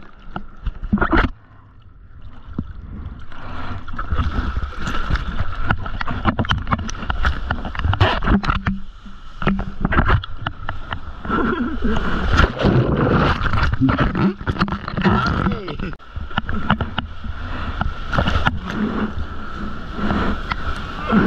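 Seawater splashing and sloshing close around the microphone as a surfer paddles a surfboard out through broken whitewater, with arm strokes slapping the water in irregular surges.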